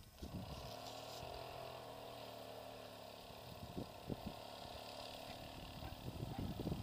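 An engine running steadily, its pitch rising and falling a little, with a few low thumps of wind on the microphone in the second half.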